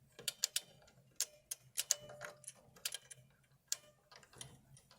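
Faint, irregular small clicks and ticks of a Model F keyboard's buckling spring and key parts being handled, as the spring is pulled to stretch it: a fix for a key that sounds tinny because its spring does not buckle properly.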